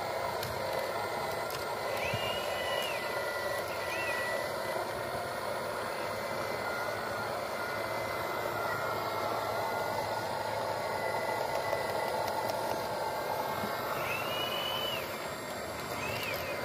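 Radio-controlled model excavators' electric motors whirring steadily as they dig, with a few brief high whines that rise and fall in pitch.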